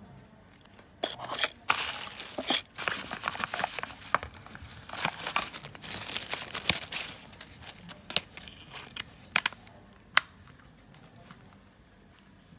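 Thin CPE plastic bag crinkling and rustling as it is handled and pulled open, followed by a few sharp clicks as the handling ends.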